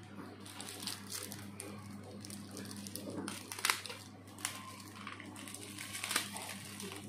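Thin clear plastic food bag crinkling and rustling as hands handle and open it, in irregular crackles with one sharper crackle about halfway. A steady low hum runs underneath.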